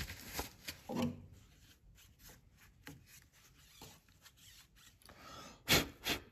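Gloved hand wiping and brushing sawdust off the cutterhead and blade of a Dewalt DW734 thickness planer: a run of uneven short rubbing and scuffing strokes, with a louder one about a second in and two more near the end.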